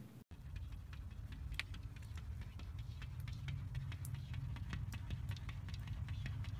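A cat's paws tapping and patting against a glass pane as it stands on its hind legs, making scattered light clicks over a steady low rumble.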